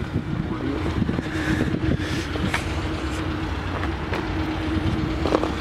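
A vehicle engine running steadily: one constant hum over a low rumble.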